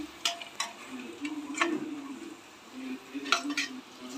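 Perforated steel skimmer ladle scraping and clinking against the aluminium pressure cooker as sliced onions are stirred in hot oil, with about five sharp clinks. The onions are being sautéed until browned.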